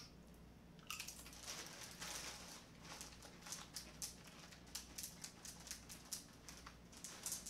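Faint, irregular clicks, taps and crackles, many short ones close together, of kitchen items being handled at the counter.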